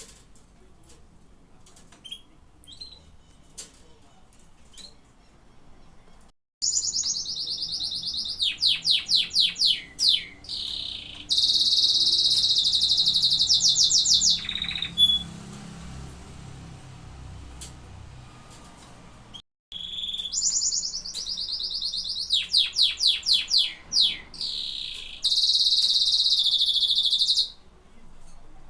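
Domestic canary singing: a few soft chirps, then two long song bouts of rapid high trills and long rolled notes, with a short pause between them.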